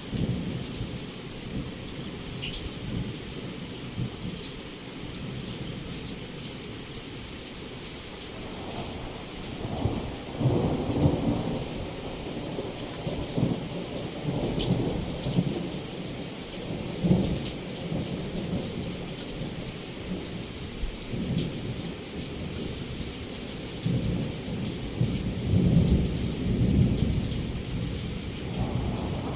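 Heavy rain pouring steadily against a window, with low rolling thunder that swells about ten seconds in and again about twenty-five seconds in.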